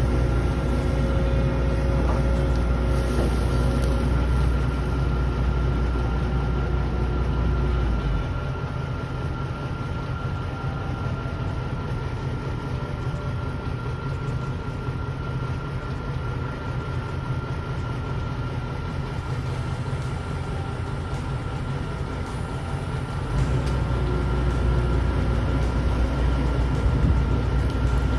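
John Deere compact excavator's diesel engine running steadily while it digs, with a steady high whine over the low rumble. The rumble weakens about eight seconds in and comes back strong near the end.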